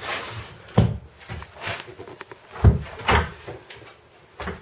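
Wooden floorboards being handled: a few separate knocks and scrapes of wood on wood, the loudest about two and a half seconds in.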